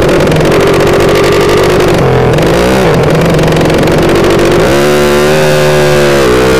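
Loud race-tuned 'sleep engine' motorcycle running hard at speed, its engine note dipping and recovering briefly about two seconds in. About five seconds in, a second motorcycle's engine note joins, from a Yamaha MX King pulling alongside.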